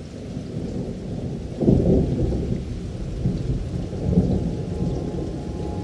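Thunder rumbling over rain: a low, dense rumble that swells sharply about a second and a half in and again near four seconds.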